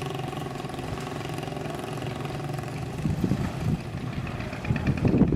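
An engine running steadily at idle, with a few louder low knocks about three seconds in and again near the end.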